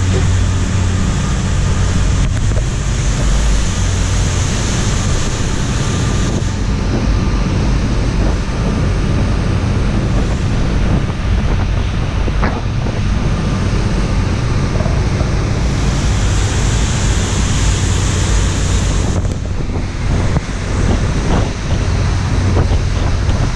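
Steady low drone of a catamaran car ferry's engines under way at speed, mixed with the rush of water from the wake and wind buffeting the microphone.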